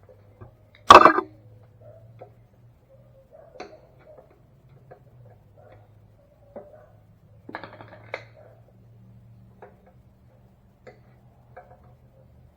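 Scattered clicks and knocks of tools and metal engine parts being handled while a gas tank is bolted on, with one loud sharp knock about a second in and a quick cluster of clicks about seven and a half seconds in.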